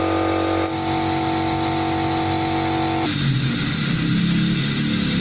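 Car engine revved during a carbon-clean (decarbonising) treatment, held at steady revs with a constant note. About three seconds in, the revs drop and the sound turns lower and rougher.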